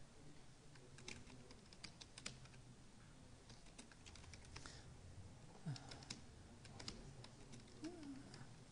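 Faint computer keyboard typing: irregular runs of keystrokes as a line of text is typed, with short pauses between bursts.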